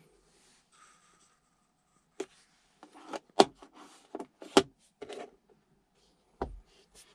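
Hard plastic clicks, knocks and rubbing from a car's centre armrest lid being lifted, things shifted in the storage bin beneath it, and the lid closed. The loudest knocks come about three and a half and four and a half seconds in, with a low thud near the end.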